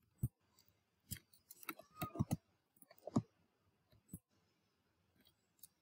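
Faint, irregular clicks of a computer keyboard being typed on, with mouse clicks, separated by short silences.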